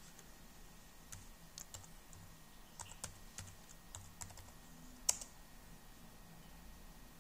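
Keys being typed on an aluminium MacBook's keyboard: about a dozen irregular sharp key clicks over a few seconds, ending with one louder keystroke.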